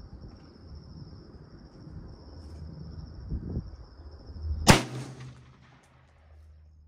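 A single rifle shot from a 20-inch AR-15 firing 55-grain 5.56/.223 ammunition: one sharp crack about two-thirds of the way in, with a short echo trailing off after it.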